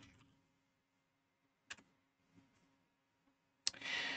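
Near silence with a faint steady hum. A single computer keyboard keystroke sounds about two seconds in. Near the end there is a click followed by a short breathy hiss.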